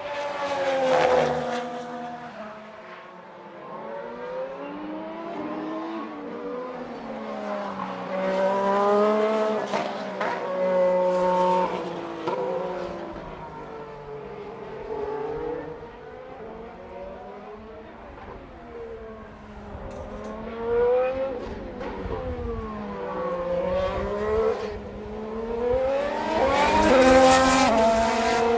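Formula 1 cars with Renault 1.6-litre turbocharged V6 power units running at speed, passing several times. The engine pitch climbs and then drops sharply through the gear changes, and is loudest about a second in, around nine to eleven seconds in, and near the end.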